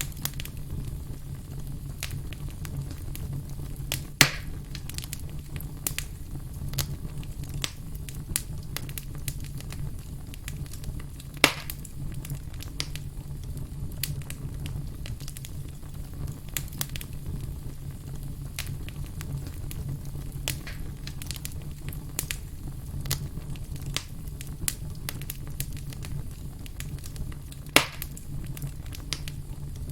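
Wood campfire crackling, with many small snaps over a steady low rumble of the flames. Three louder pops come about 4 seconds in, about 11 seconds in and near the end.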